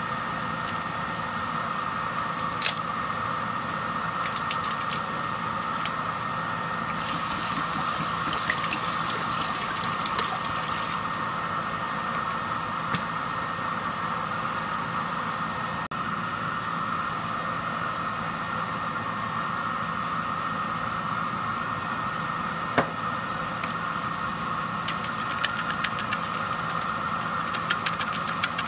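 A steady mechanical hum over milk heating in a stainless steel pot, with scattered crackles and a burst of sizzling hiss about seven seconds in. A quick run of clicks comes near the end.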